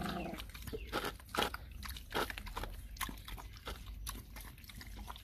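A puppy eating soft food from a plastic bowl: irregular wet chewing and lapping clicks.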